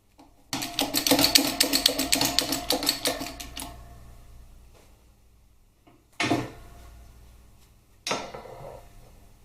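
Metal press tooling and the engine case being handled on a workshop press bed: a rapid metallic rattle lasting about three seconds, then two separate metal clanks with a short ring.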